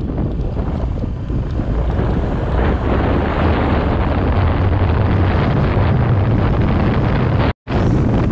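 Steady wind rush on the microphone of a moving motor scooter, with the scooter's running noise underneath. The sound cuts out completely for a split second near the end.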